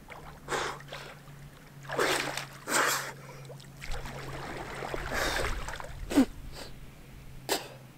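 Water splashing and sloshing as a person wades and dunks his body in icy lake water, with a few short, sharp breaths against the cold.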